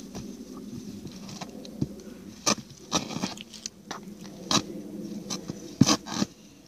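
A dog eating, crunching and chewing food from a pile on the ground, in irregular sharp crunches.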